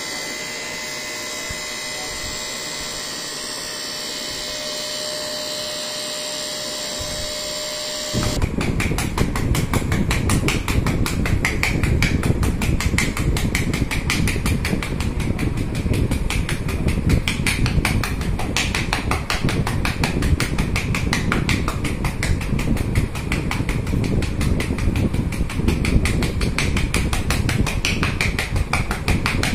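Handheld electric vibration massager running: a steady whine with a hiss, then, from an abrupt change about eight seconds in, a louder, rapid pulsing buzz.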